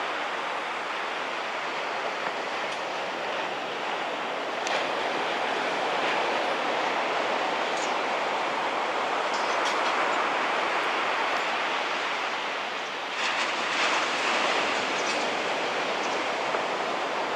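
Steady wash of small waves breaking on a sandy beach, swelling now and then, with a few faint clicks about five seconds in and again near the end.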